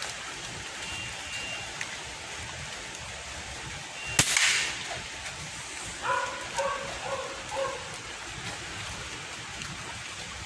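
A single shot from a Daisy 880 multi-pump pneumatic air rifle about four seconds in: a sharp crack with a short rush of air after it. A few short pitched calls follow about two seconds later, over a steady hiss like rain.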